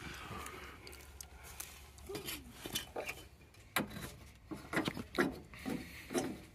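A hand turning and working loose the rusty wing nut on the air-cleaner cover of a Caterpillar 983B track loader: scattered small metal clicks and scrapes that come thicker toward the end.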